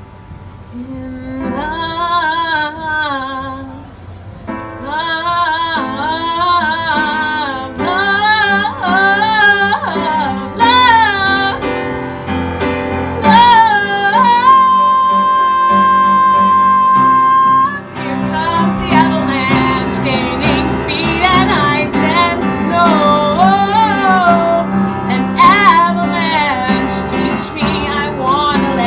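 A woman singing a musical-theatre ballad with strong vibrato to live piano accompaniment. About halfway through she holds one long high note for roughly three seconds before the song goes on into a fuller, louder passage.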